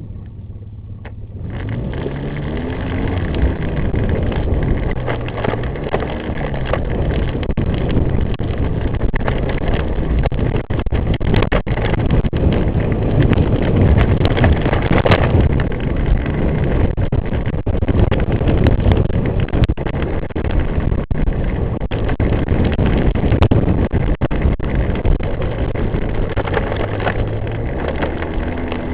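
ATV engine running as it is ridden along a dirt trail, its note rising and falling with the throttle over a rough rushing noise. It gets louder about two seconds in as the machine pulls away.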